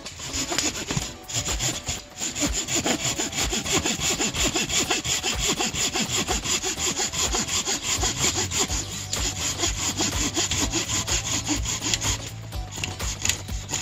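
Hand saw cutting through wood in quick, steady back-and-forth strokes.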